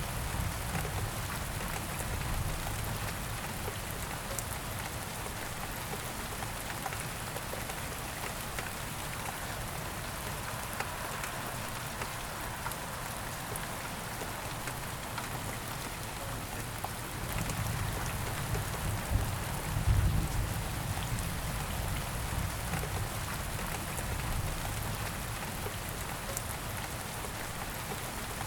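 Steady rain falling on a surface, an even patter of drops. A low rumble swells briefly about two-thirds of the way through.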